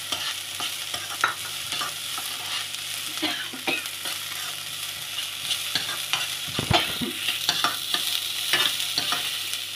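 Chopped onions sizzling in hot oil in a kadai while a spatula stirs and scrapes them, with scattered clicks of the spatula against the pan and one heavier knock about seven seconds in.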